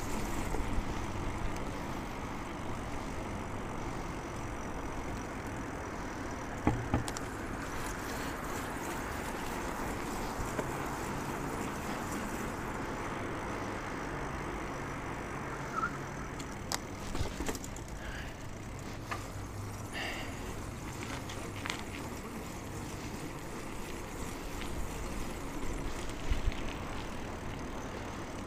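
Steady road noise with motor traffic, picked up on a bicycle rider's clip-on mic during a ride. A few sharp clicks and short squeaks come through, about seven seconds in and again around the middle.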